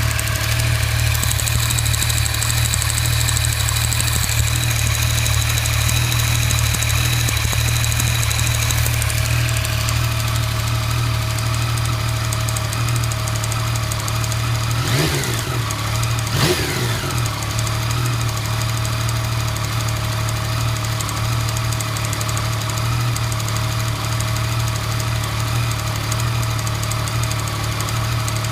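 Yamaha MT-09 three-cylinder engine idling cold, with a rather abnormal noise that the owner says disappears completely once it is warm. A faint high whine fades out about nine seconds in, and the throttle is blipped twice in quick succession about fifteen seconds in.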